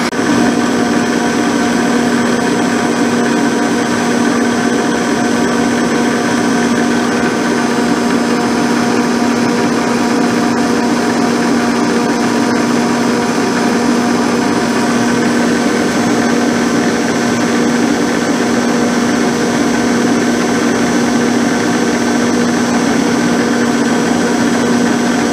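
Abene horizontal milling machine running at about 170 rpm, its 4-inch carbide-insert cutter taking a 30-thousandths cut along a rough cast-iron straight-edge casting. A steady machine drone with a constant low tone.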